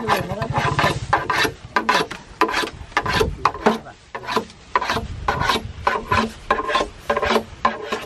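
A hand tool rasping on wood in quick repeated strokes, about two or three a second, each stroke with a slight ringing tone.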